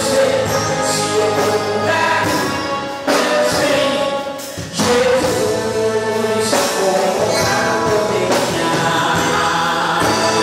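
Live gospel worship music from a church band, with singing over the accompaniment; the music dips briefly about four seconds in.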